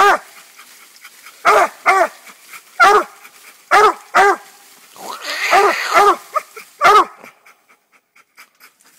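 Young English coonhound barking treed at the base of a tree, the sign that she has a raccoon up it. She gives short barks, often in pairs, about nine in seven seconds, and stops near the end.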